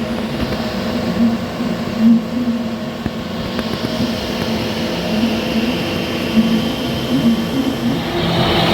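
TIG welding arc on carbon steel from a Lincoln TIG welder: a steady buzzing hiss over a low, wavering hum, growing a little brighter about three and a half seconds in.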